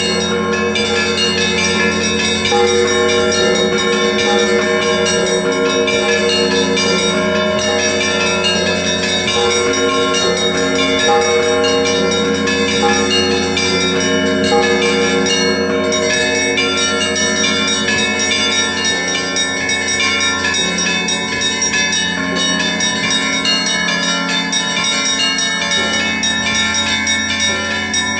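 Russian Orthodox monastery bells rung together in a continuous peal: many bells of different pitches sound at once, with quick repeated strokes over a steady ringing.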